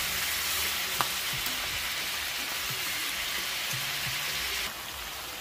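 T-bone steaks sizzling as they fry in bubbling fat in a cast-iron skillet: a steady hiss with one sharp click about a second in. The sizzle drops a little near the end.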